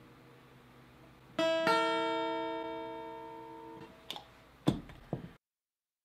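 Acoustic guitar strummed twice, about a second and a half in, the chord ringing out and fading over about two seconds. A few short knocks follow, then the sound cuts off.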